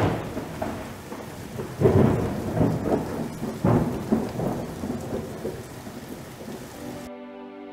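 Thunderstorm: steady rain hiss with three claps of thunder, one right at the start and two more about two seconds apart, each rolling off into rumble. Near the end it cuts off abruptly and soft music comes in.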